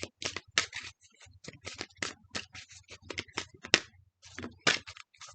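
A deck of oracle cards being shuffled and handled by hand: a run of quick, irregular card snaps and rustles.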